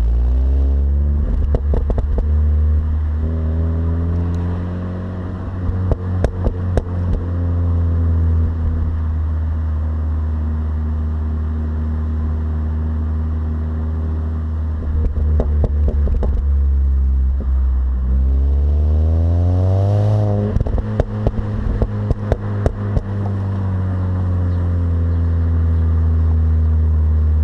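Mini Cooper S R53's supercharged 1.6-litre four-cylinder engine running, its pitch rising and falling with the revs, with a quick climb and fall about twenty seconds in. Clusters of short clicks and crackles come and go over the engine note.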